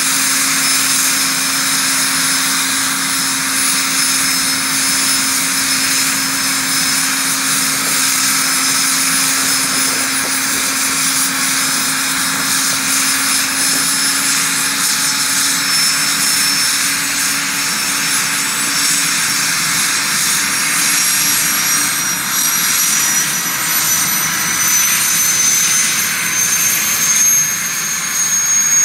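Gazelle helicopter's Turbomeca Astazou XIVH turboshaft running on the ground with the main rotor turning: a steady high turbine whine over rotor noise. The whine rises slowly in pitch over the last ten seconds or so.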